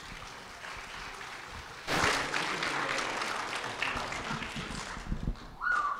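Congregation applauding as the song ends, the clapping growing much louder about two seconds in.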